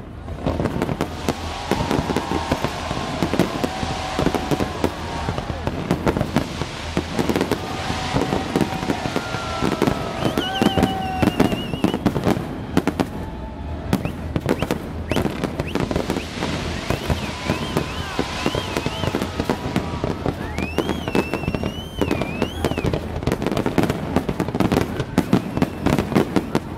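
Fireworks display: a continuous barrage of bangs and crackling as shells burst one after another.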